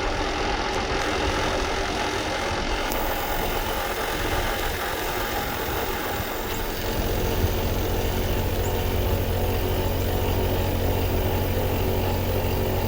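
American Standard inverter compressor unit running steadily with a mechanical hum; about seven seconds in, its low hum steps up and grows stronger.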